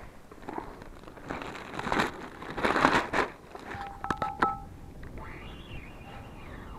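Thin plastic bag rustling and crinkling in repeated bursts over the first three seconds as a caught fish is packed into it. About four seconds in come a few sharp clicks with a brief whistling tone, followed by a faint whine that rises and falls.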